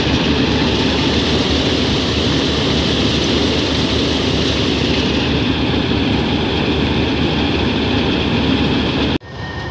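Combine harvester running loud and steady at close range, its engine and unloading auger working as it empties its full grain tank into a trolley. It cuts off suddenly near the end.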